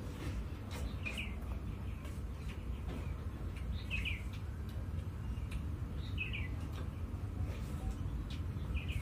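A bird chirping repeatedly, short calls of two or three quick high notes about every two to three seconds, over a steady low rumble with faint clicks.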